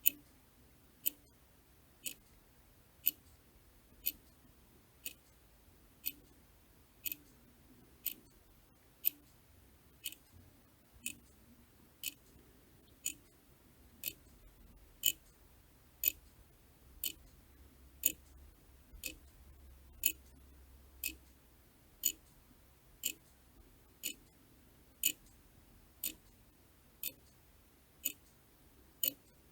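Clock ticking steadily, one sharp, high click about every second.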